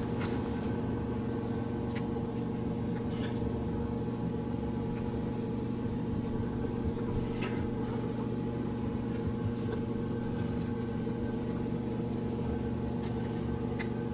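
Steady low hum of room equipment, with a few faint light clicks and taps from small plastic parts being handled.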